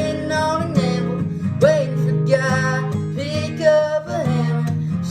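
Country song: a singer's held, sliding vocal line over a strummed acoustic guitar.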